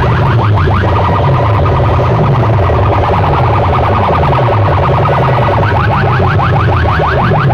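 Siren-like electronic sound effect played very loud through a big loudspeaker box sound system: rapid rising chirps, about five or six a second, turn into a warbling held tone about a second in and come back near the end, over a pulsing heavy bass.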